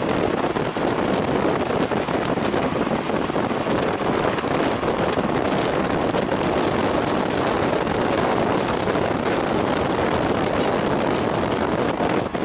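Steady wind rush on the microphone mixed with engine and tyre noise from a moving motorcycle.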